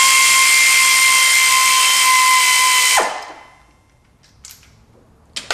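Air ratchet running at a steady high whine with a rush of exhaust air as it unscrews a spark plug; it stops about three seconds in, the pitch dropping as it spins down. A sharp click near the end.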